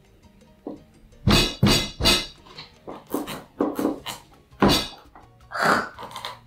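A chef's knife forced through the hard neck of a butternut squash, the wooden cutting board knocking heavily against the counter with each push: several loud thuds with smaller knocks between them.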